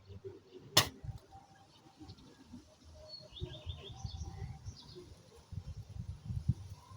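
Birds chirping outdoors, with a quick run of high chirps about three seconds in. There is one sharp click a little under a second in, and low muffled bumps throughout.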